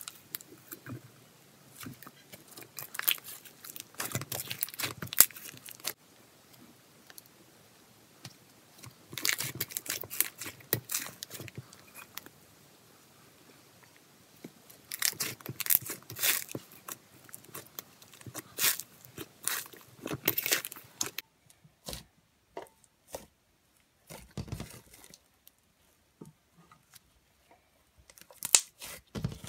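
A large slime packed with tiny foam beads being squished, stretched and pulled apart by hand: crunchy crackling and tearing sounds in bursts with short quiet pauses. In the last third there are only sparser pops and clicks.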